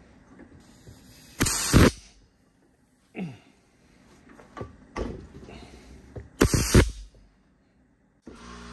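Two short blasts of compressed air from a blow gun, about five seconds apart, fired into the bore of a hydraulic cylinder to push the piston out against its return spring.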